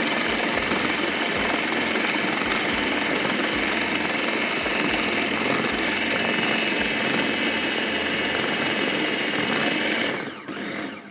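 Electric food processor running steadily, its blade chopping bread into a crumbly mixture. About ten seconds in it is switched off, and the motor winds down with a falling whine.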